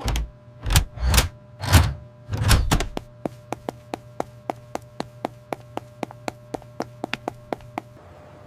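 Sound effects: a few heavy thuds in the first three seconds, then a steady run of light, quick ticks or taps at about four a second over a faint steady hum.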